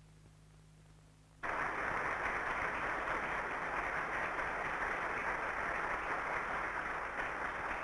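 Faint steady hum, then applause cuts in suddenly about a second and a half in and holds steady, heard through thin, narrow-band archival film sound.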